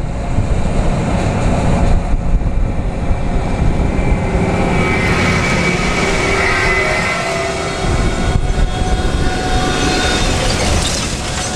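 Large farm machine running steadily: a heavy diesel engine with continuous mechanical noise.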